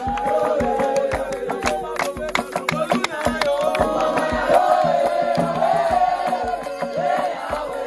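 Gospel song sung by a group of voices, with rhythmic hand-clapping throughout.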